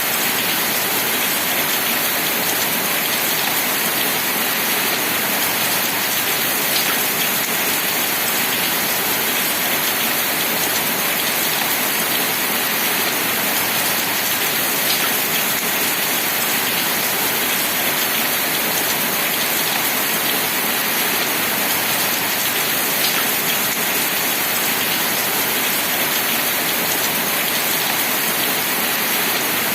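Steady rain: an even hiss of falling rain with the odd louder single drop.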